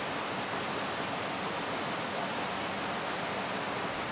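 Itema rapier weaving looms running in a weaving shed: a steady, dense machine noise.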